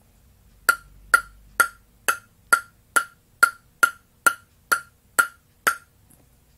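A table tennis ball bounced lightly twelve times on a bare, unrubbered Butterfly Ovtcharov Innerforce ALC blade (five wood plies plus two Arylate-Carbon layers), about two crisp tocks a second. The tock is relatively high-pitched, the bounce being used to hear the blade's character.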